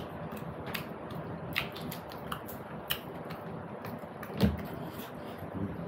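Close-up eating sounds: scattered short, wet clicks of chewing and lip smacks, with one soft thump about four and a half seconds in.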